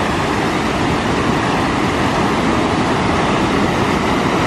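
Steady loud rush of ocean surf at the water's edge as a shallow wave washes over wet sand, with a low rumble of wind on the microphone.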